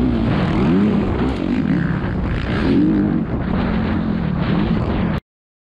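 Dirt bike engine heard from the rider's helmet camera, its pitch rising and falling again and again as the throttle is worked through the track's corners and jumps, with wind rush on the microphone. The sound cuts off suddenly about five seconds in.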